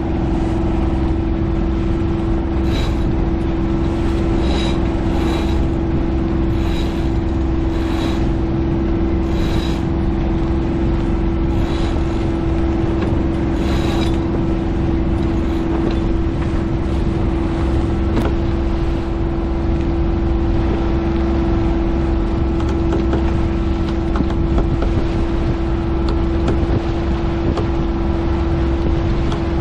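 A sailboat's auxiliary motor runs steadily, with a constant low drone, while it charges worn-down batteries. Through the first half, short sharp metallic clicks come about every second or two.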